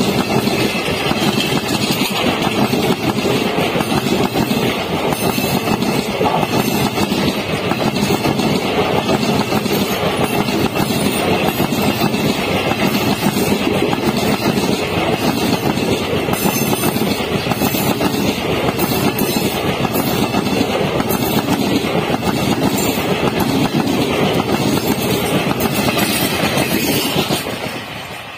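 Indian Railways passenger train coaches running past at high speed close by: a loud, steady rush of wheels on rail with clattering over the joints. It drops away sharply near the end.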